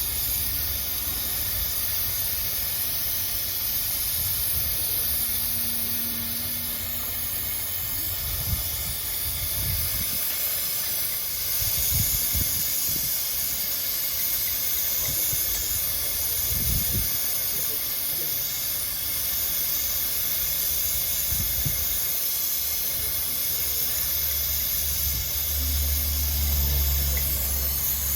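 Gas welding torch flame hissing steadily while a hole in a motorcycle crankcase is welded shut.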